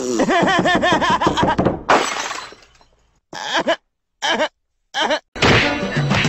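Cartoon soundtrack: a man's voice laughing in a high, wavering run, then a sudden crash that fades out over about half a second. Three brief snatches of sound follow, and background music comes in near the end.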